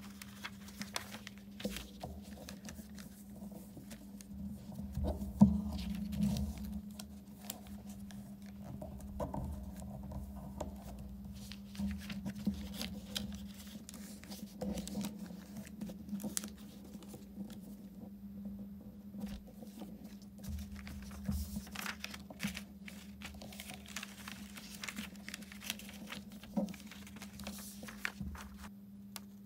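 Paper being handled, rustling and creased as gloved hands fold and smooth it flat, with scattered soft taps and crinkles and one louder rustle about five seconds in. A steady low hum runs underneath.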